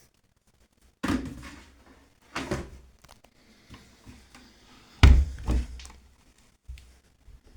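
Beko front-loading washing machine with its drum turning slowly and wet laundry dropping inside, four dull thumps at uneven intervals, the loudest about halfway through.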